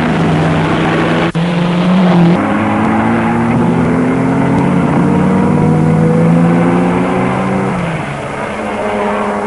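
1950s Grand Prix racing car engines running hard, their note rising and falling as the cars accelerate and brake through the corners. There is a brief break about a second in.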